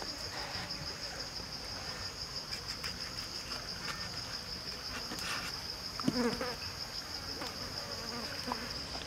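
Steady high-pitched drone of insects in the surrounding woods, unbroken throughout, with a single sharp knock about six seconds in, as a cleaver strikes the wooden cutting board.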